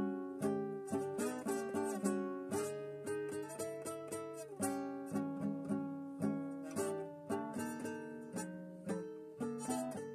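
Solo plucked string instrument playing a quick tune of picked notes and chords, each note struck sharply and ringing away before the next.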